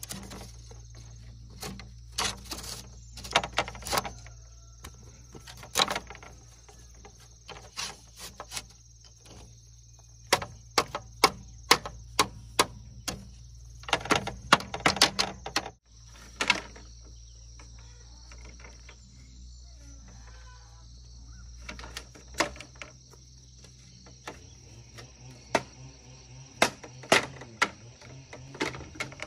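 Irregular hollow clacks and knocks of split bamboo slats being laid and tapped into place on bamboo poles, sometimes in quick clusters, over a steady high insect drone.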